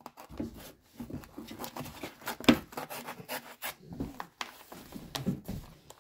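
Utility knife blade slitting open a paper mailer envelope: irregular scratchy scraping and paper rustling. A sharp click comes about two and a half seconds in.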